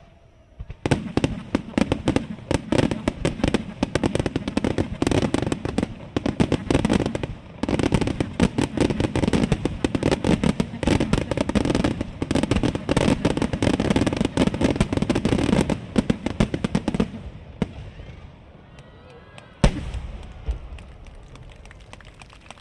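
Aerial fireworks bursting in a dense barrage of rapid bangs and crackles, starting about a second in. The barrage stops suddenly after about sixteen seconds, and one more loud bang follows a couple of seconds later.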